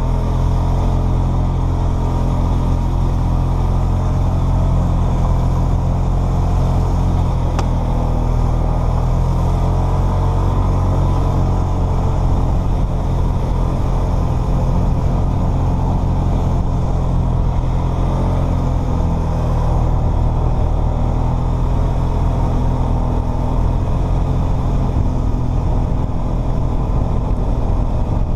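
Polaris Sportsman 500 ATV's single-cylinder four-stroke engine running steadily under way, held at an even cruising pace.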